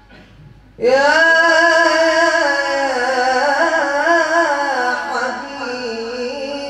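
A solo male voice singing an Arabic nasheed into a microphone. After a short pause, about a second in, he starts one long, drawn-out melismatic phrase on a single vowel, wavering in ornaments and slowly sinking in pitch.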